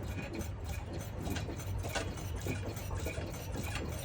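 Irregular short creaks and squeaks from a Mitsubishi Outlander PHEV as the car is rocked on its applied mechanical handbrake, over a steady low rumble. The owner traced the squeak to hard aftermarket rear brake pads, and it was cured by fitting softer pads.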